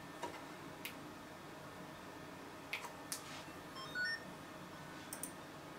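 Midland M30 CB radio being switched off and on: a few faint control clicks, then about four seconds in a quick run of short electronic beeps at changing pitches as the radio powers up.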